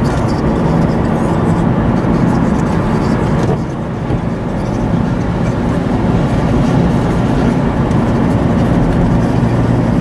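Car driving on a wet road: steady engine and tyre noise, dipping about three and a half seconds in and then building back up.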